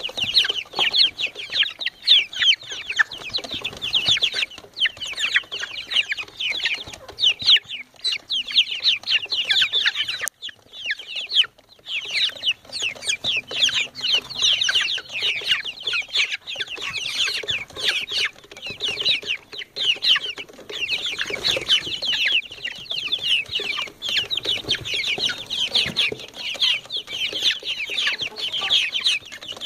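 A flock of four-week-old Light Sussex chicks peeping constantly in quick, high-pitched, falling cheeps, with a short break about ten seconds in.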